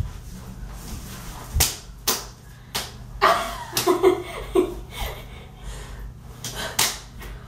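Hand claps and hand slaps from two people running a hand-clapping handshake routine: sharp slaps and claps in a quick, uneven rhythm.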